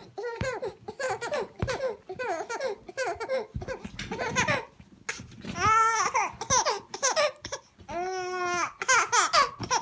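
Baby laughing in a string of short, high giggles, with two longer held squeals of laughter in the second half.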